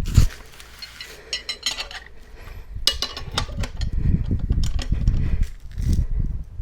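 Metal bead-breaker tools clinking and knocking against a motorcycle wheel rim as they are set on the rear tire, then duller knocks and rubbing as the tire bead is pushed down.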